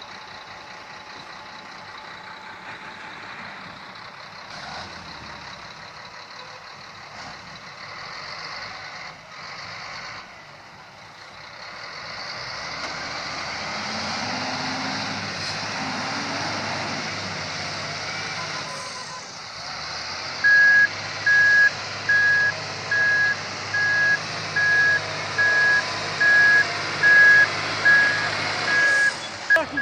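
Heavy diesel engines running under load, getting louder about 12 seconds in as the XGMA wheel loader pulls the bogged crane truck out on a tow strap. Two-thirds of the way in, the wheel loader's reversing alarm starts beeping about once a second as it backs up to pull.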